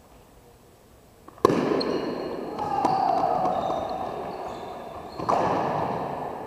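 A single sharp crack of a softball bat hitting the ball, then a burst of shouting and cheering echoing in a large hall, with a second loud swell of shouting near the end.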